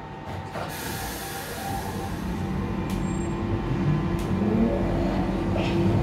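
Waterloo & City line tube train, 1992 stock, setting off: a hiss about a second in, then the rumble of the wheels and a steady motor hum growing louder as it picks up speed, heard from inside the carriage.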